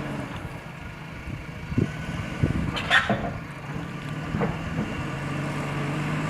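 Diesel engine of a heavy construction machine running steadily, with a few sharp metallic knocks and clanks about two to three seconds in; the loudest comes around the three-second mark.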